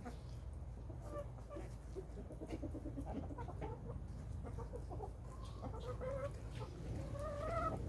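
Chickens clucking while they feed: many short soft clucks throughout, with a few longer rising calls near the end, over a steady low rumble.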